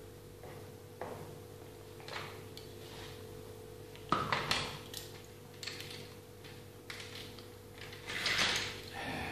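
Handling noises from a hairdressing mannequin head being turned and adjusted on its stand: scattered knocks and rustles, the loudest about four seconds in and again near the end, over a steady low hum.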